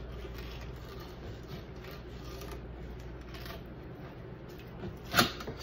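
A fillet knife sliding flat along a cutting board under a sea robin fillet, scraping the skin away from the flesh; faint scraping, with one sharp tap near the end.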